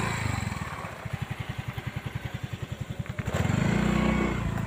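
Motorcycle engine dropping to a slow idle with distinct, evenly spaced puttering pulses, then picking up again a little over three seconds in.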